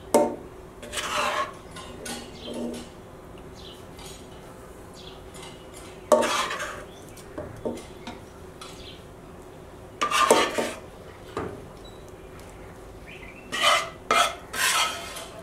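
A spoon scraping and knocking against cooking pots as meat gravy is spooned out onto rice in a stainless steel pot. It comes in several short clattering bursts a few seconds apart, over a faint steady hum.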